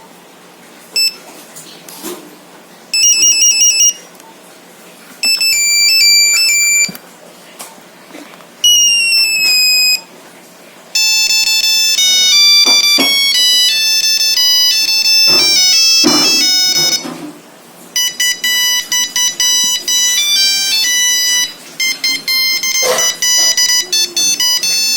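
Nokia 3310 monophonic ringtones and alert tones played one after another through the phone's speaker. First come short beeping trills and a brief sliding tone, then two longer bleeping melodies in the second half.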